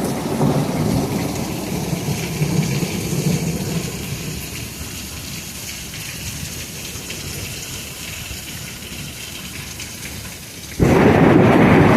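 Rolling thunder rumbling over heavy rain from a squall line, the rumble fading over several seconds. Near the end the rain and wind noise abruptly jump much louder.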